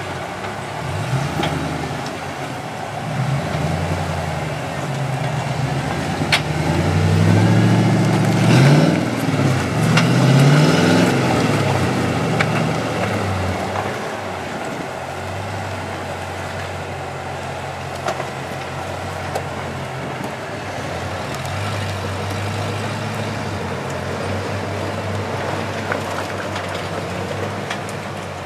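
Jeep engine running at low revs while crawling over rocks, revved up and down several times about a third of the way in, then held steady. A couple of sharp knocks sound during the revving.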